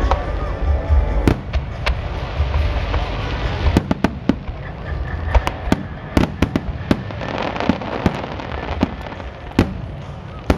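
Aerial fireworks shells bursting in a rapid series of sharp bangs and crackles, thickest through the middle, over a steady low rumble.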